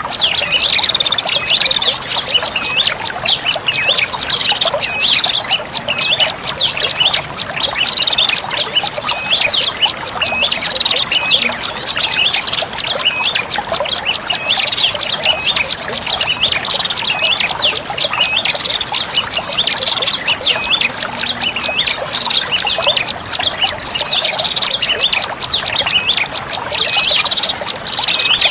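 Prenjak lumut song played as a lure call: a loud, rapid, high-pitched chattering twitter of hooked chirps, repeated in phrases without pause.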